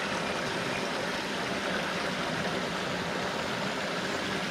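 Small cascade of a mountain brook spilling into a pool: a steady rush of running water.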